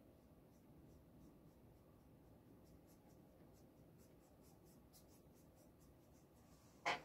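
Faint, repeated scratchy strokes of a paintbrush working acrylic paint onto a hardboard panel, with a short knock just before the end.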